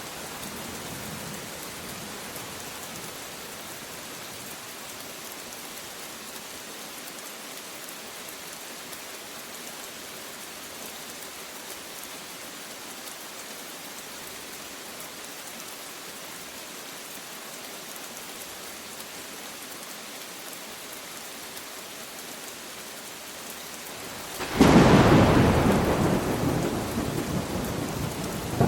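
Steady rain falling, then about 24 seconds in a sudden loud thunderclap that rolls on as rumbling and slowly fades.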